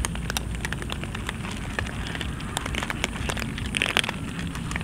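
A group of cats crunching dry kibble: a dense, irregular crackle of many small crunches and clicks.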